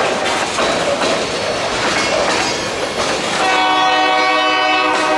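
Freight train wagons rumbling past with steady wheel clatter on the rails. About three and a half seconds in, the train's air horn sounds a steady multi-note chord that is held to the end.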